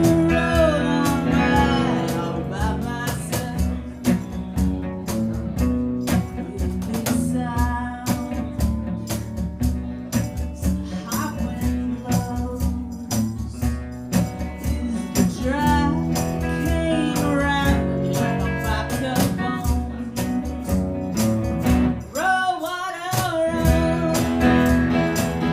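Live band music: strummed guitars in a steady rhythm with a singing voice over them.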